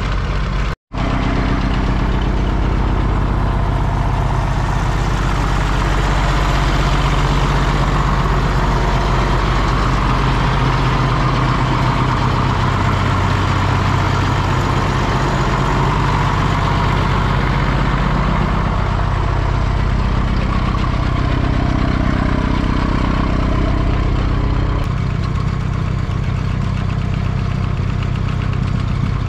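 Schlüter Super 1250 VL tractor's six-cylinder diesel running steadily while it drives the vacuum pump of a slurry tanker filling through its suction hose. The sound cuts out completely for an instant about a second in, and the engine note shifts slightly near the end.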